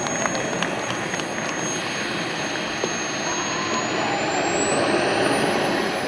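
Small model jet turbine engine of a radio-controlled Mirage 2000N running as the model rolls along the runway, a high whine over steady jet noise. The whine rises in pitch from about three seconds in and is at its highest near the end.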